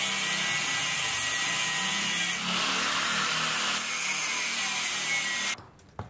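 A power tool running steadily, a dense whirring noise whose tone shifts a little about two and a half seconds in, then stops suddenly about five and a half seconds in.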